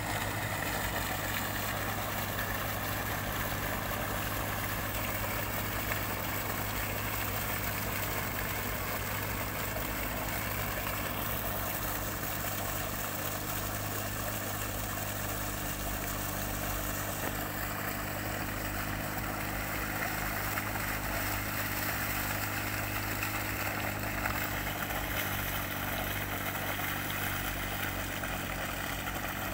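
Mitsubishi diesel engine of a river sand-suction dredge running steadily at constant speed, under the rush of sand-and-water slurry gushing from the discharge pipe.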